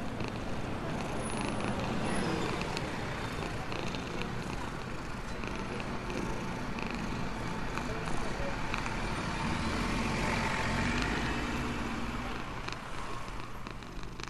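Steady rushing traffic noise, with a cat purring beneath it.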